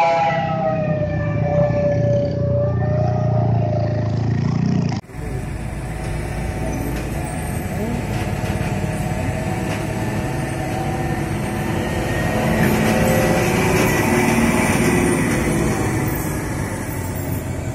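A truck's multi-tone air horn holds a steady chord for the first two or three seconds, dipping slightly in pitch as it fades, over heavy diesel engine rumble. After an abrupt cut about five seconds in, heavy diesel trucks drive through the bend with steady engine and tyre noise, a little louder as one passes close.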